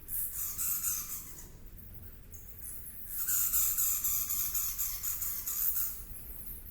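Insects trilling in high, rapidly pulsed bouts, one near the start and a longer one from about three seconds in, over a steady low background.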